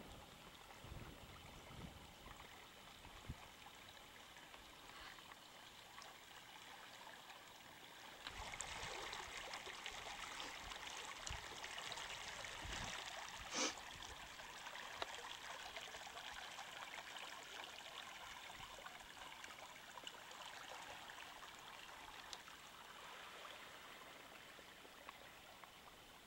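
Faint running river water, a soft steady wash that grows fuller about eight seconds in, with one sharp click near the middle.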